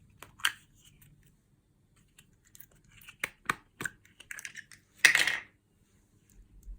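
Small plastic bags and craft items handled close to the microphone: a scatter of sharp clicks and taps, then a short crinkling rustle about five seconds in.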